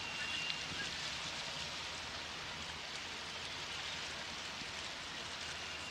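Steady hiss of water churned by a Flying Cat 40 high-speed catamaran ferry's waterjets as it pulls away from the pier, over a low, steady hum from its diesel engines.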